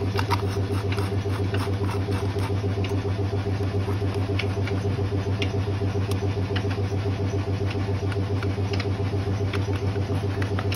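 Homelite XL-123 two-stroke chainsaw engine running steadily at idle on fuel primed into the carburettor, with a fast even beat and no revving.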